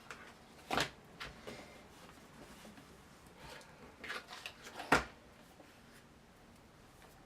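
Cardstock pieces being handled and pressed together on a craft table: scattered taps and light paper rustles, with the sharpest knocks about a second in and about five seconds in.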